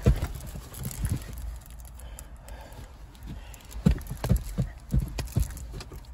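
A small clear plastic bag with a vinyl figurine inside rustling and crinkling as it is handled, with a run of short, soft knocks and taps as the figure and bag are turned over in the hands.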